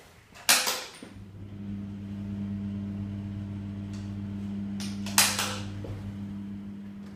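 A wall light switch clicks on and, a moment later, a bathroom extractor fan starts up with a steady electrical hum. A second switch click comes a little after five seconds in, and the hum then slowly dies away.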